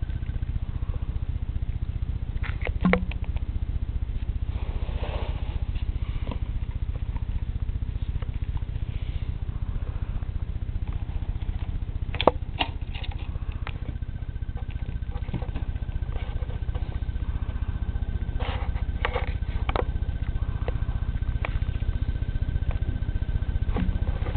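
Steady low rumble with a handful of light clicks and taps scattered through it: a Russian dwarf hamster scrambling and landing around its cage. A faint steady high tone comes in about halfway through.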